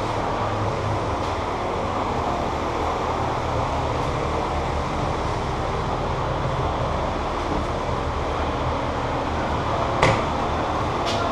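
Steady rushing background noise, with two sharp snaps about a second apart near the end.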